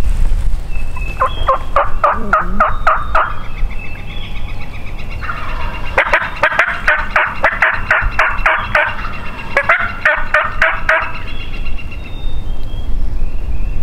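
Wild turkeys calling: a run of about eight evenly spaced yelps starting about a second in, then a longer, louder run of rapid calls from about five to eleven seconds in. Small songbirds chirp faintly in the background.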